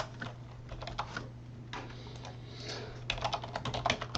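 Typing on a computer keyboard: scattered keystrokes, then a quick, dense run of typing about three seconds in, over a steady low hum.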